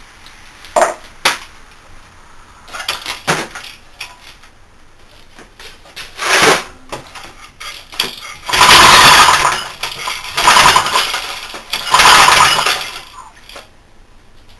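The recoil pull-starter of a single-cylinder Briggs & Stratton horizontal-shaft engine, its head shaved for high compression, being yanked repeatedly. A few light tugs come first, then three hard pulls near the end, each a loud rasping whir about a second long as the engine is spun over. The engine does not catch and run.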